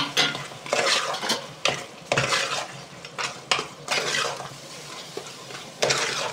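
Metal spoon scraping and knocking against a metal cooking pot in several strokes, stirring beef and masala for karahi gosht, with a sizzle of frying underneath.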